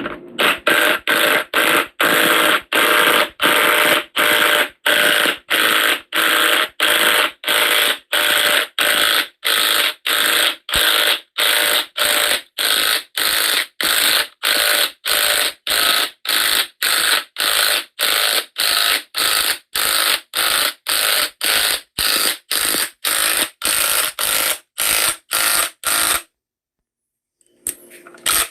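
Impact wrench driving a ball joint press screw to push out an old control arm bushing, hammering in short bursts about twice a second. It stops briefly near the end, then comes back in quicker bursts.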